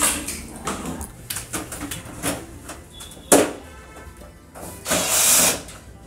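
A string of knocks and clatters from cleaning gear being handled and set down, with one sharp knock a little past three seconds in and a short hiss about five seconds in.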